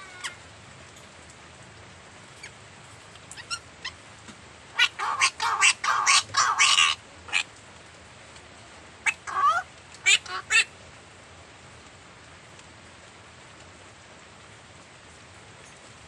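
Caged blue-naped parrot and racket-tailed parrot calling: a rapid run of loud, harsh calls about five to seven seconds in, then a few shorter ones around nine to ten and a half seconds, over a steady hiss.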